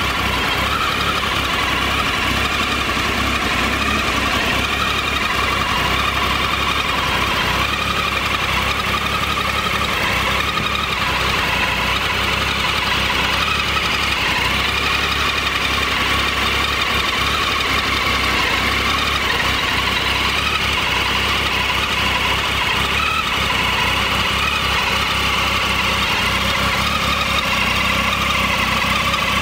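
Triumph Tiger 800 XRT's three-cylinder engine idling steadily.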